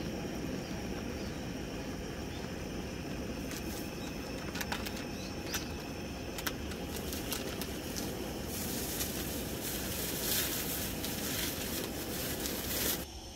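Ramen broth boiling in a wide pan on a portable gas stove: a steady low rumble with scattered pops. A brighter hiss joins about two-thirds of the way in, and the sound cuts off just before the end.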